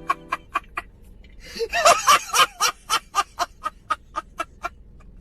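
Rapid laughter: a steady string of short 'ha' bursts, about five a second. It is faint at first, gets much louder about a second and a half in, and fades near the end.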